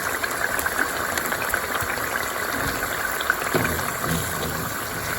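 Blended onion, ginger and crayfish frying in hot oil in a pot, with a steady sizzle and fine crackling.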